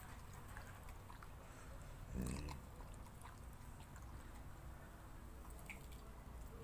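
Faint sounds of a German Shepherd eating from a steel bowl: soft scattered clicks over a low hum, with one brief low sound about two seconds in.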